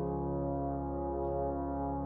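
Background music: slow ambient piece of steady, held tones.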